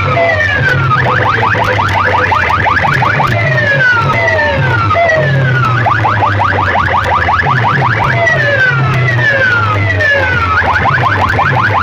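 Loud electronic siren-style effect played through a large competition sound system: repeating falling pitch sweeps alternate with fast pulsing yelps, over a pulsing heavy bass line.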